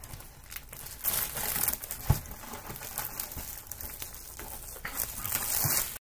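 Clear plastic film crinkling as it is peeled off a frozen pizza in its pan, irregular and crackly, with a dull knock about two seconds in.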